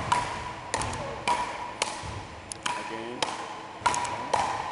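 Frescobol paddles hitting the ball back and forth in a quick rally. Each hit is a sharp crack, coming about every half second to a second, and each echoes briefly in the sports hall.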